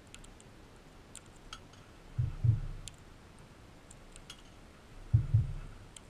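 Crimson rosella feeding from a dish of sunflower seeds: scattered small clicks of seeds and husks being picked up and cracked, with dull low knocks on the feeder, twice in quick pairs.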